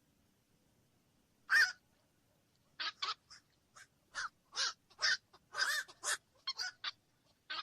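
Black-crowned night heron giving short, harsh calls: one loud call about one and a half seconds in, then a quick run of about a dozen shorter calls through the second half.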